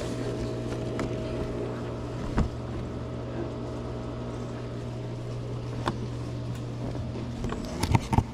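A steady low mechanical hum holding several fixed pitches, with a few sharp clicks and knocks over it. The loudest knocks come in a quick cluster near the end.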